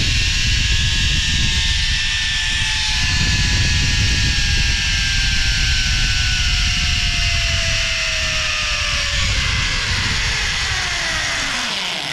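Zip-line trolley pulleys running along the steel cable with several high whining tones, over loud wind rushing on the microphone. The whine falls slowly in pitch and then drops steeply near the end as the trolley slows to a stop at the end of the line.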